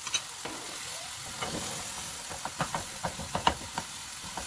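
Ground pork, onion and garlic sizzling in hot oil in a frying pan. From about a second and a half in, a wooden spatula knocks and scrapes against the pan in a string of short clicks as the meat is broken up and stirred.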